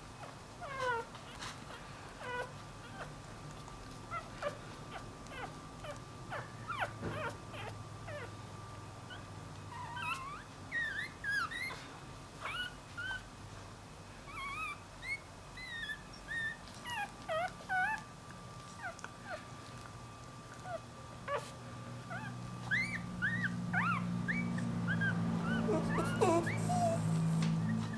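Newborn Dachshund–Jack Russell cross puppy whining in short, high-pitched squeaky cries that slide up and down in pitch, calling for its mother after crawling away from her. The cries come more often near the end, over a low hum that grows louder in the last several seconds.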